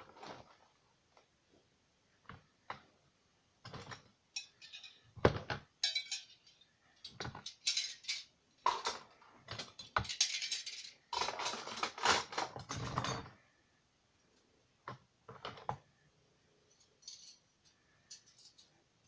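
Dishes and the wire rack of an open dishwasher clinking and rattling as a cat noses about in the lower rack, in scattered bursts, busiest around the middle.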